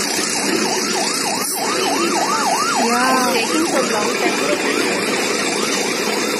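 Emergency vehicle sirens on a fast yelp, quick rising-and-falling sweeps several times a second. About three seconds in, a second siren overlaps the first. Steady background noise runs underneath.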